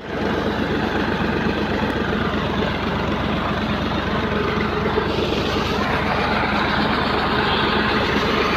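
Massey Ferguson tractor engine running steadily as it drives a tube-well pump, with a heavy stream of water rushing from the discharge pipe into a concrete tank and channel. The rush of water grows stronger about halfway through.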